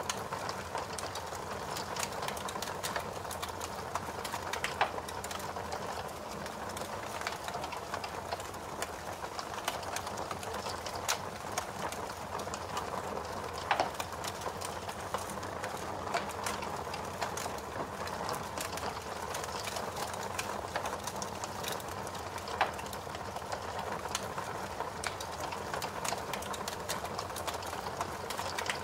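Fire crackling: a steady hiss of burning with frequent small crackles and three sharper pops spread through.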